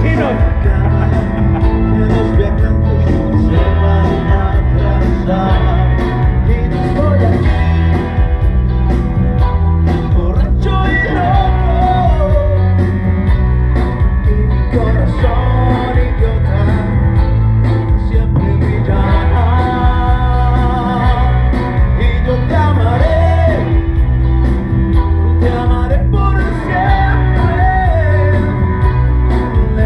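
Karaoke: a man singing into a microphone over amplified backing music with a steady beat.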